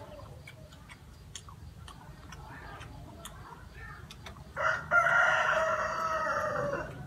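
A rooster crows once, loud and drawn out for about two and a half seconds, starting a bit past halfway through. Before it, soft clicks of chewing and handling food.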